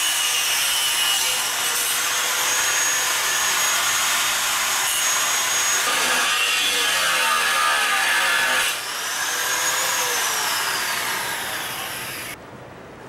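Angle grinder with a cutoff wheel cutting through a rusted car exhaust pipe: a harsh grinding hiss with a high whine. Near the end the whine falls and the grinder stops.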